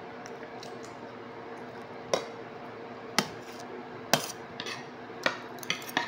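Sharp clicks and taps at a meal table, about seven of them starting about two seconds in, some in quick pairs, over a steady faint hum.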